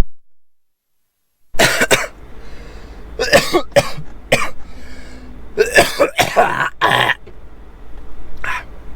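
A person coughing and clearing their throat repeatedly in short bursts, starting about a second and a half in after a moment of silence.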